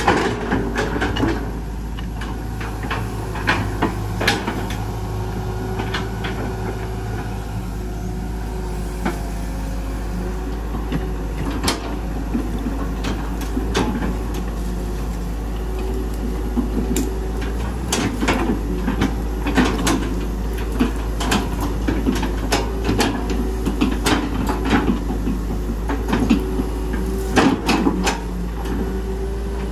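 Hitachi EX120 hydraulic excavator working: its diesel engine runs steadily under load while the bucket digs and spreads soil, with frequent sharp clanks and knocks, thickest in the second half.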